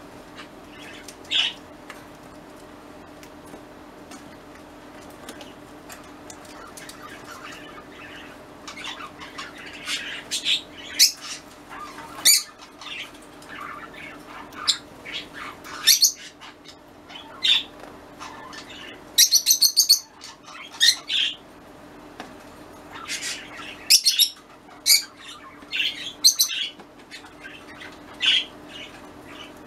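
Pet cockatiel chirping and calling on and off, in short repeated chirps with a louder run of harsh squawks about two-thirds of the way through.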